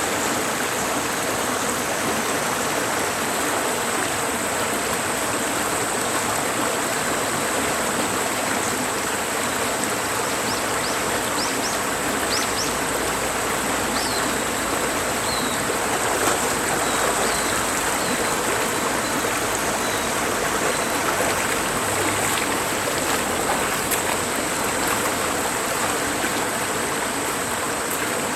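Mountain valley stream flowing steadily, with a few faint, short high chirps around the middle.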